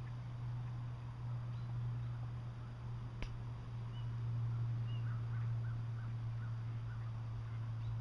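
Faint bird calls, a few short chirps and then a run of quicker ones in the second half, over a steady low hum, with a single sharp click about three seconds in.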